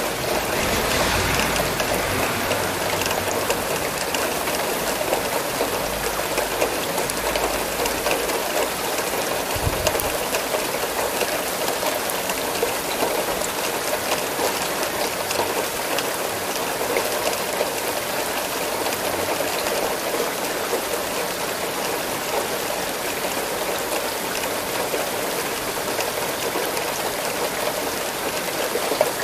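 Steady rain falling: an even hiss full of small drop ticks. A low rumble sits underneath for the first ten seconds or so and ends in a dull thump.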